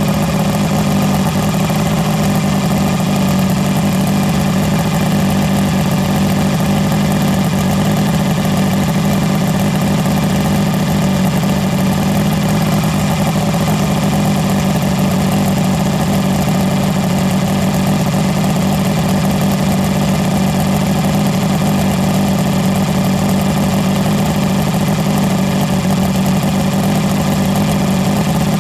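1976 Mercury inline-six two-stroke outboard, cowling off, idling steadily.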